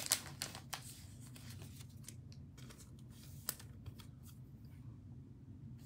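Trading cards being handled and set down on the table: a few soft rustles and clicks in the first second, another click about three and a half seconds in, over a low steady hum.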